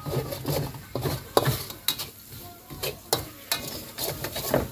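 A cooking utensil stirring and scraping in a pan, with irregular sharp clinks and knocks against the metal.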